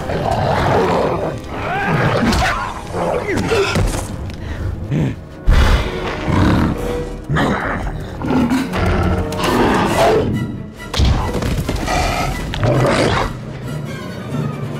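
Film fight soundtrack: roars from the Hulk and a mutant dog over dramatic orchestral score, with heavy thuds. A sharp, loud impact lands about five and a half seconds in.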